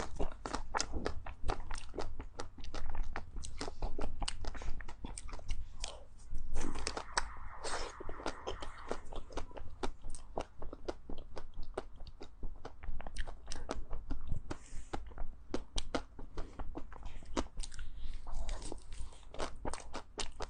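A person biting and chewing crunchy ice cream close to the microphone: a dense, continuous run of sharp crunches and chewing.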